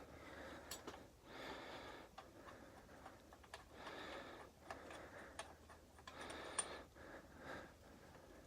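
Faint, scattered clicks of small metal parts, engine head bolts and washers being handled and set down, between soft breaths.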